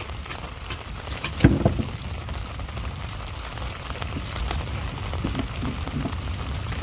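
Drizzle falling steadily on the sea, an even hiss with scattered faint drop ticks, and a brief thump about a second and a half in.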